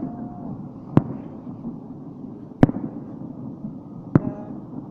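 New Year fireworks shells bursting: three sharp bangs about a second and a half apart over a continuous low rumble of further bursts.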